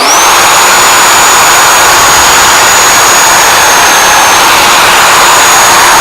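Reciprocating saw with a bi-metal blade starting abruptly and running loud and steady, cutting through the nails between a pallet plank and its block, a constant high whine over the rasp.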